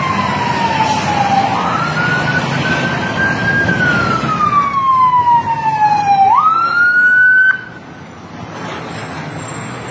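Ambulance siren wailing as it approaches, its pitch sliding slowly down and then snapping back up, twice over, before it cuts off abruptly near the end; road traffic noise runs underneath.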